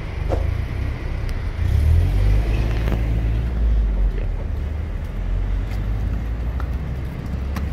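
Street noise: a steady low rumble of road traffic, swelling briefly about two seconds in, with a few faint clicks.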